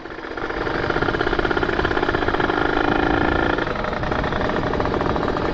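Ported Kawasaki Ninja 150 RR two-stroke single-cylinder engine running on the road, freshly rebuilt and being run in. Its note builds over the first second, holds a steady pitch, and drops lower about three and a half seconds in as the throttle eases.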